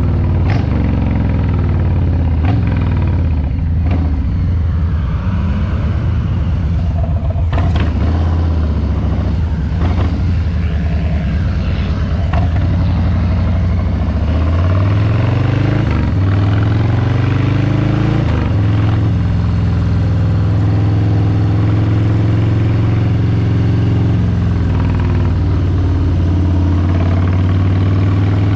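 Harley-Davidson Street Bob 114's Milwaukee-Eight 114 V-twin running under way. The engine note drops as the bike slows over the first few seconds. About halfway through the revs climb through two gear changes, then settle into a steady cruise.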